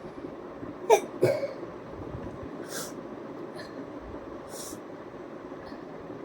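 A person sneezing: two sharp, explosive bursts about a third of a second apart, then two short breathy hisses like sniffs or exhalations.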